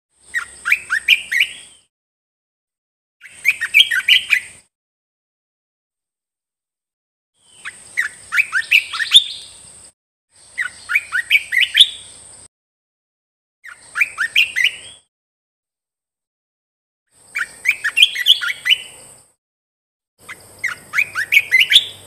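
Olive-winged bulbul singing. Seven short phrases, each a quick run of notes lasting one to two seconds, come with pauses between them.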